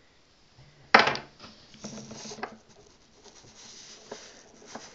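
A sharp knock about a second in, then scattered light taps, rubbing and scraping as small hard objects are handled on a wooden tabletop.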